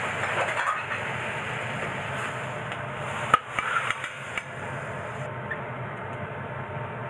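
Vegetables sizzling in an iron frying pan as the last of the sauce cooks off, over a steady low hum. About three seconds in there is a sharp knock, then the pan clatters and scrapes as the food is tipped into a ceramic bowl, and the sizzle ends.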